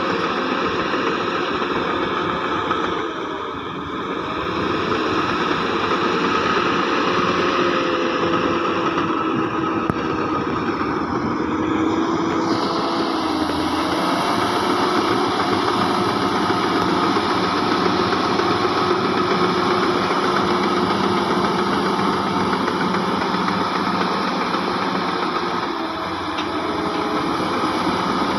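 Heavy diesel engine of earthmoving machinery running steadily, its pitch wavering slightly, with brief dips in loudness about three seconds in and again near the end.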